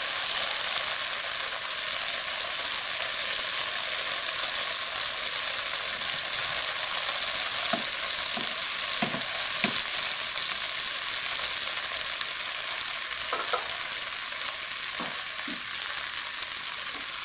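Okra, potato and tomato sizzling as they stir-fry in a nonstick frying pan, a steady hiss throughout. A wooden spatula stirs and scrapes through the vegetables a few times around the middle and again near the end.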